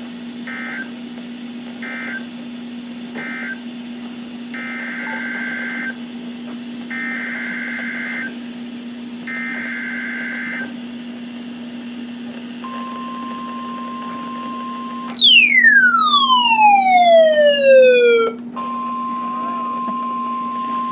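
Weather radio EAS data bursts, each a two-pitch warble: three short end-of-message bursts, then three longer header bursts for the next alert. A steady 1050 Hz weather radio alert tone follows. Partway through it a loud, falling glide with overtones sweeps down over about three seconds, and the steady tone resumes after it.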